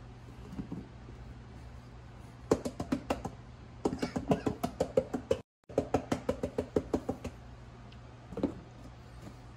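Plastic spice shaker bottle shaken rapidly over a foil pan, its contents rattling in quick runs of sharp taps, several a second, with one last tap near the end.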